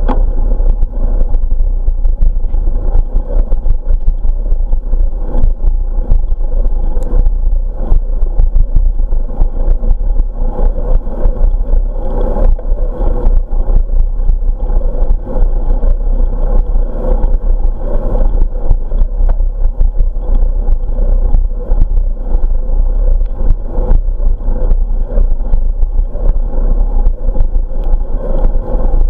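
Wind rushing over the microphone of a camera riding on a moving bicycle: a loud, constant low rumble with many small rattles and knocks from the bike and camera mount on the path.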